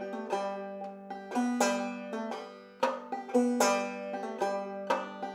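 Clawhammer banjo picking a slow, syncopated lick note by note. The thumb strikes the drone string hard, and one note is hammered on.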